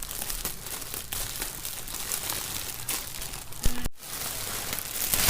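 Plastic packaging crinkling and rustling as bagged squishy toys are handled, with many small crackles. The sound drops out briefly about four seconds in.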